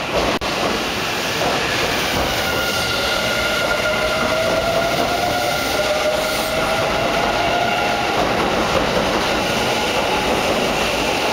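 Kintetsu 50000 series 'Shimakaze' electric express pulling away from the platform: steady wheel-and-rail noise under a whine of several held tones from its traction motors, creeping slowly up in pitch as the train gathers speed.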